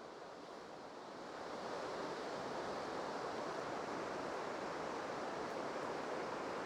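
A steady rushing noise with no pitch to it. It swells slightly about a second in and then holds even.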